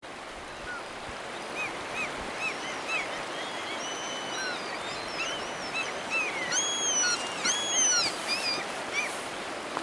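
Gulls calling: many short calls, the loudest and longest about two thirds of the way through, over the steady rush of a river.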